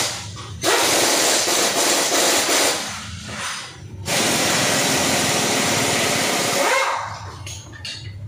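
Pneumatic air tool running in bursts on a car's front stabilizer link, a loud hiss with a fast rattle underneath; the two longest bursts last two to three seconds each.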